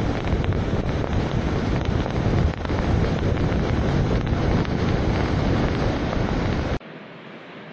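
Loud wind noise on the microphone, a steady rush strongest in the low end. It cuts off suddenly near the end, leaving a much quieter hiss.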